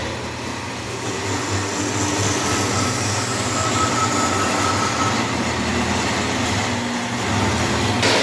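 400BC automatic burr-free cutting machine running, a steady mechanical noise over a low hum, with a faint high tone joining for a couple of seconds midway.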